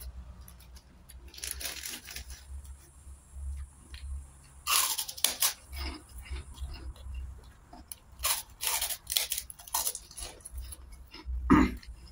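Close-miked eating: crunching and chewing of a crisp white cracker alongside rice, in several short bursts of crackling bites, the loudest near the end.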